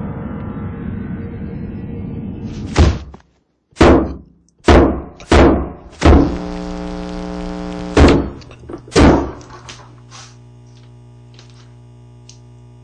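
Seven loud, heavy bangs, like pounding on a door, spread over about six seconds, over a droning tone that gives way to a fainter low hum after the last bang.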